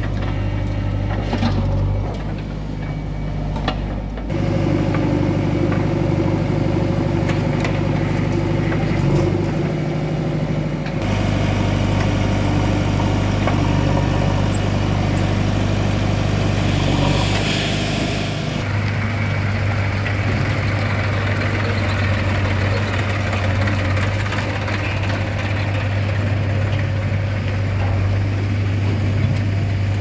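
Diesel engines of a JCB 3DX backhoe loader and a farm tractor running steadily as the backhoe bucket loads soil into a steel tractor trolley, with soil pouring in. The engine sound changes abruptly a few times.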